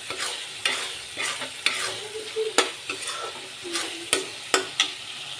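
Metal spoon stirring and scraping a thick masala in a metal kadhai, clinking against the pan about twice a second, over the steady sizzle of the masala frying in oil as it cooks down.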